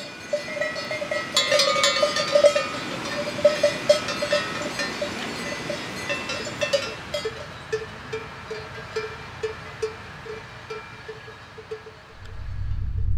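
Cowbells on grazing cattle clanking irregularly, several bells ringing at different pitches as the cows move. A low rumble swells in near the end.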